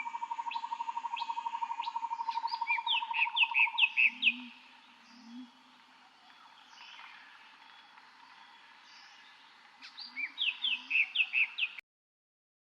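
Birds singing: a rapid, even trill at one steady pitch for the first few seconds, with runs of quick down-slurred chirps over it, and another run of chirps near the end. The birdsong cuts off suddenly shortly before the end.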